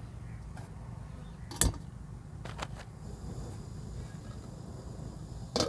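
A few sharp clicks and knocks of camp cooking gear being handled to heat water: a loud one about one and a half seconds in, a quick pair a second later, and another loud one near the end, over a steady low hum.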